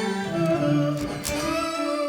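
Electric guitar played through a Strymon BigSky MX reverb on its organ-style "Volksfisa" preset. The preset's harmonics engine adds layers of pitched intervals above each note, giving a sustained, organ-like wash. Held notes shift every half second or so, with a fresh pick attack about a second in.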